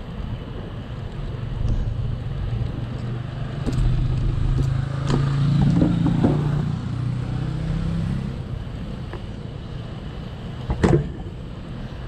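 Road traffic alongside: a car's engine and tyres swell and fade over a few seconds over a constant low rumble. A sharp knock comes near the end.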